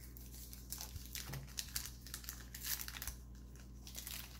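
A Pro Set football card pack's paper wrapper being torn open and crinkled by hand: irregular crackling with small tearing sounds.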